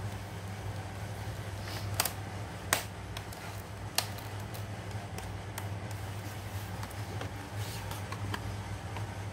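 Sharp plastic clicks and taps as a laptop's casing and parts are handled and worked loose, three louder ones about two, three and four seconds in, over a steady low hum.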